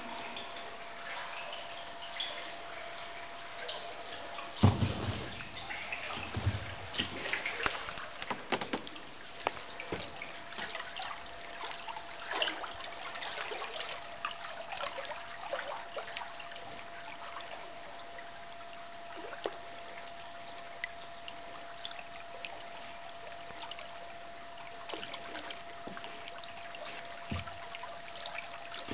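Water lapping and trickling against a drifting kayak's hull, with small drips and splashes. A loud thump about five seconds in, the loudest sound, is followed by a few more knocks over the next several seconds.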